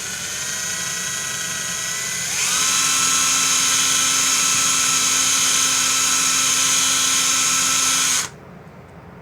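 DeWalt DW990 14.4 V XRP cordless drill/driver running with a steady whine. About two seconds in it speeds up to a higher, louder pitch, holds for roughly six seconds, then stops abruptly.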